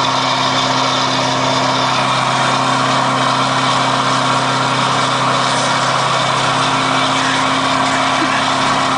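Scania R580's V8 diesel with a straight-through exhaust, heard from inside the cab, running steadily at an even pitch as the truck pulls uphill.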